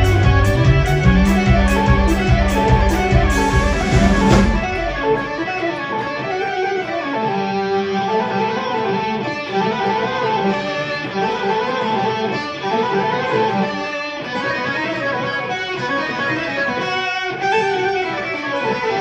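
Live progressive rock band with electric guitar to the fore. About four seconds in, the drums and bass drop out, leaving the guitar and other melodic instruments playing on.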